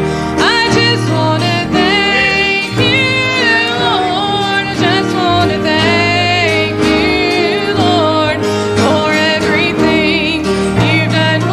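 A woman singing a slow gospel song with vibrato, accompanied by acoustic guitar and electric bass.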